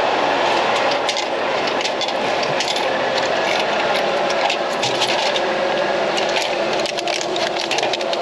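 Frozen-food vending machine dispensing an order: a steady mechanical hum with many clicks and rattles as the delivery hatch is opened and a plastic tray of frozen gyoza is pulled out.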